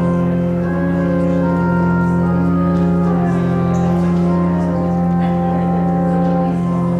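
Church organ playing sustained chords over a held bass note, with the upper notes changing slowly.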